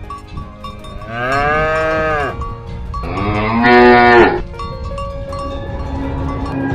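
Cows mooing: two long moos, the second louder, each dropping in pitch as it ends.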